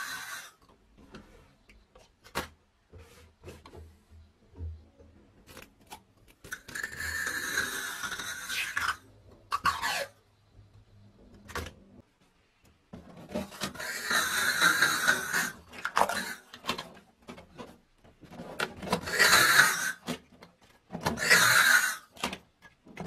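Packing tape pulled off the roll of a hand-held tape gun dispenser and laid onto cardboard boxes, in four long rasping runs of one to three seconds each, with small clicks and taps between them.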